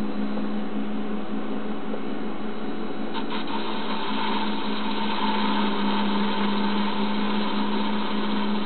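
Clausing 4900-series lathe running steadily, its spindle motor driven by a variable frequency drive at 30 Hz, while a carbide insert takes a facing cut on a UHMW plastic rod. About three seconds in there is a short tick, and a higher steady tone joins the steady machine hum.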